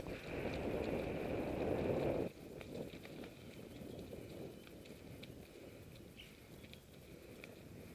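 Mountain bike tyres rolling over a gravel trail, with small crunches and ticks. For the first two seconds wind rushes loudly over the microphone, then cuts off suddenly, leaving the quieter tyre crunch.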